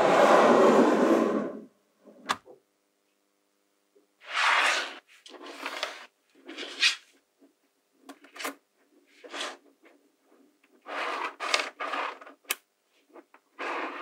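Small magnetic balls clicking and rattling against each other and the tabletop as strands are laid out and snapped together into a flat sheet. A longer, loud rattle in the first second and a half, then short rattling bursts with a few sharp single clicks between.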